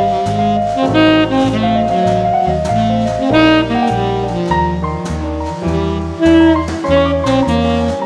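Instrumental jazz background music: a melody over a stepping bass line, with regular beats.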